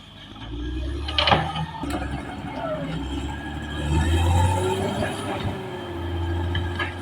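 Caterpillar D6R XL bulldozer's diesel engine working under load, its steel tracks clanking and squealing. The engine swells twice, around the middle and near the end, and a sharp knock comes about a second in.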